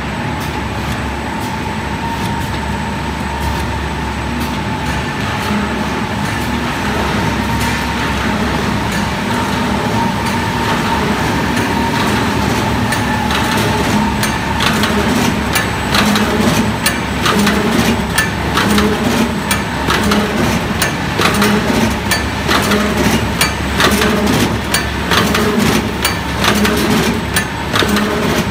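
Automatic folder gluer stitcher for corrugated boxes running: a steady machine hum with a high whine, joined about halfway by rapid clacking and a repeating knock from its moving parts.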